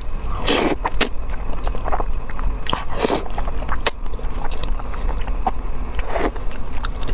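Close-miked eating of sticky spicy fire-chicken noodles: three slurps, about half a second, three seconds and six seconds in, with chewing and small wet mouth clicks between them.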